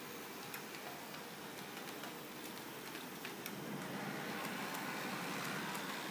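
H0-scale model streetcar running along its track: a steady motor and wheel hum with scattered light clicks, growing louder a few seconds in as the car draws nearer.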